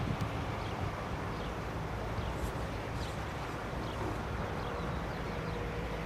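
Steady outdoor background noise with a low rumble, and faint short high chirps now and then.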